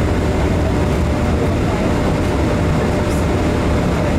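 Steady, loud cabin noise inside a Boeing 747-400 airliner: an even roar with a deep rumble and a faint steady hum, with no changes.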